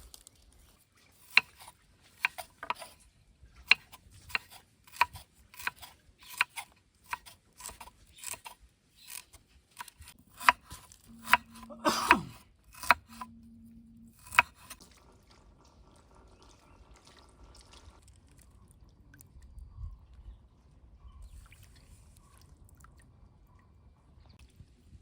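A knife chopping on a cutting board in a steady run of sharp knocks, about one every two-thirds of a second. The chopping stops about halfway through.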